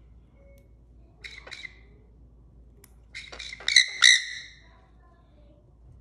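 Short squawking calls from a lightly sedated young Nanday conure: a couple of calls about a second and a half in, then a louder burst of several calls around three to four seconds in. The handler takes these as the bird calling out now and then under sedation, not as a sign of pain.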